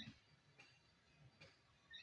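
Near silence, with a faint short bird chirp right at the start and another just before the end.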